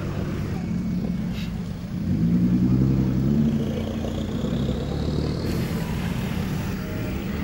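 Cars rolling slowly past with a low engine and exhaust rumble. About two seconds in, a louder engine rises in revs, and a faint rising whine follows a few seconds later.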